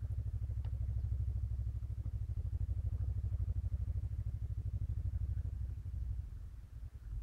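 An engine running with a low, fast, even pulsing, fading away about six seconds in.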